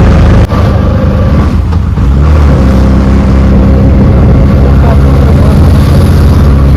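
Loud auto-rickshaw engine running during a ride, heard from inside the vehicle, with its engine note shifting about two seconds in.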